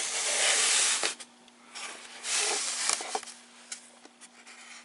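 Rustling and handling noise as packaging and a model locomotive are moved about: two bursts of rustling, each about a second long, the first at the start and the second about two seconds in, with a few light clicks between them.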